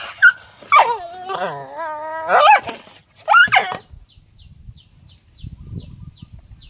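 An animal crying out in loud, wavering whines, several in the first four seconds with one long drawn-out cry among them. Then a run of short, high, falling chirps comes at about three a second.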